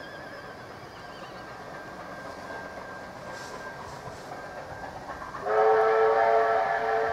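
Distant approaching train, a faint rumble that slowly grows louder. About five and a half seconds in, the locomotive sounds a loud, multi-tone chord whistle that holds steadily.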